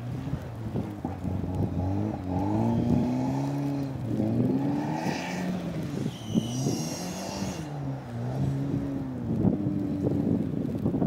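A 1990 all-wheel-drive turbo DSM's turbocharged 4G63 four-cylinder revving up and falling back over and over as the car churns through deep snow, with a dense clatter throughout. A brief high whine rises over it about six seconds in.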